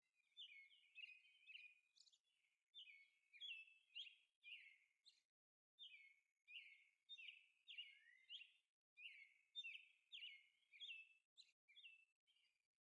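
Faint birdsong: quick runs of short chirps and whistled notes, broken by brief pauses.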